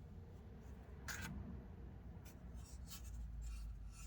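Faint handling noise from an old hand saw and tools being turned over: a brief scrape about a second in, then a few light ticks and rubs.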